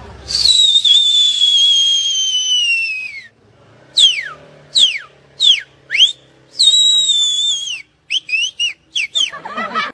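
High whistling: a long note that slides slowly down, then four quick swooping notes falling steeply, another long falling note, and a quick run of short chirpy notes near the end.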